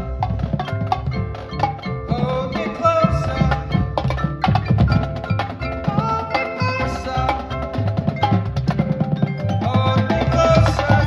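Marching band playing: wind instruments holding sustained chords over snare and bass drum strokes.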